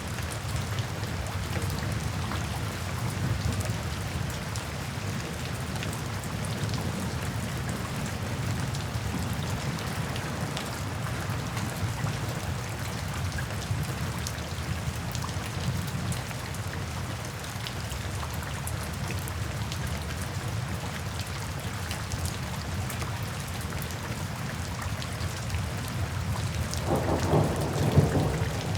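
Steady rain falling, with a low rumble of distant thunder underneath. Near the end a louder roll of thunder builds.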